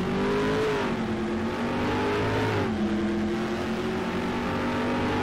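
Car engine accelerating hard under load: its pitch climbs, drops sharply at an upshift about two and a half seconds in, then climbs slowly again.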